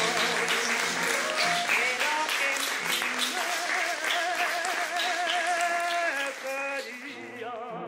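Audience applause mixed with music that carries long held notes with a wavering vibrato. The clapping fades about six seconds in, leaving the music alone.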